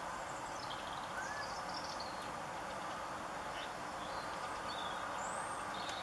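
Small garden birds calling faintly: scattered short, high chirps and call notes over a steady background hiss.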